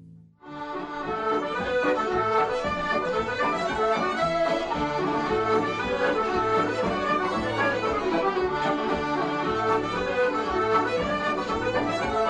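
Irish traditional dance tune led by accordion, starting abruptly about half a second in and running in quick, dense notes.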